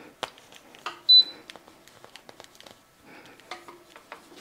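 Instant Pot Pro giving one short, high beep about a second in as it is plugged in and powers up to standby, with a few sharp clicks of the plug and handling around it.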